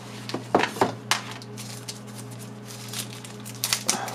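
Thin plastic wrapping crinkling and rustling as it is handled and opened, with a few sharp crackles about half a second to a second in and a cluster near the end. A low steady hum sits underneath.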